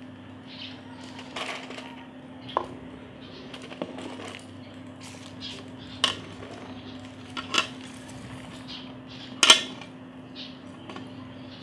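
Chopped vegetable pieces dropped by hand into a cooking pot, landing in scattered knocks and clatters, the loudest about nine and a half seconds in, over a steady low hum.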